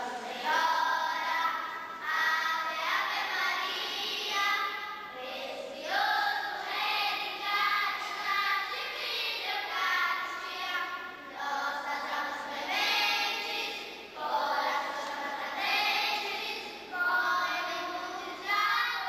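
A group of schoolgirls singing a hymn together, in sung phrases of a couple of seconds each with short breaths between them.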